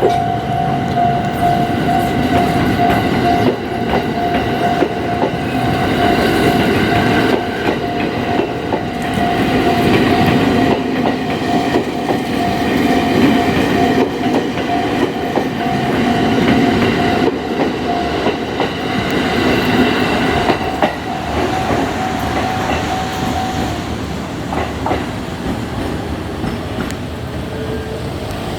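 A Yokosuka Line electric train runs over a Japanese level crossing, its wheels clattering over the rail joints. The crossing's electronic warning bell rings steadily over it and stops about 24 seconds in, while the train noise carries on.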